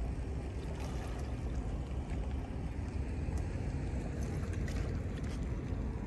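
Wind buffeting the microphone outdoors: a steady low rumble with a few faint clicks.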